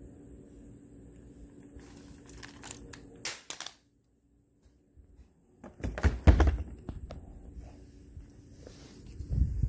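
Amend2 34-round polymer Glock stick magazine dropped from arm's height: some light handling clicks, then a sharp impact with a short clatter about six seconds in as it hits the floor, and a duller thump near the end.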